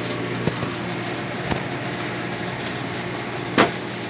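Steady machine hum, with a couple of soft knocks and a sharper knock near the end.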